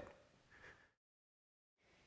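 Near silence: faint room tone that fades away to complete silence partway through, as at an edit between shots.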